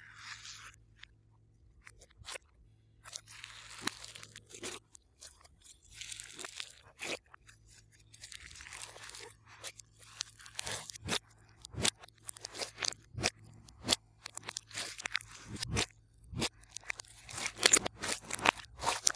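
Hands squeezing, stretching and pressing glossy slime: irregular sticky clicks and pops, with stretches of dense crackling as the slime is worked.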